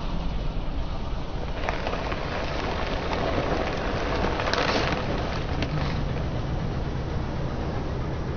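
A car tyre rolling slowly over foil bags of crunchy snacks, crushing them with a dense crackling crunch from about one and a half seconds in until about six seconds, loudest near the middle. The car's engine hums steadily underneath.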